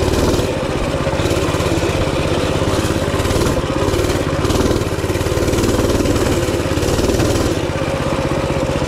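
Minibike's small single-cylinder engine running under throttle as it is ridden, the engine note rising and easing slightly.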